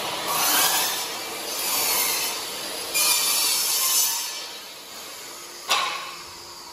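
Three long rasping strokes, each about a second, like something being scraped or rubbed against wood, followed near the end by one sharp knock.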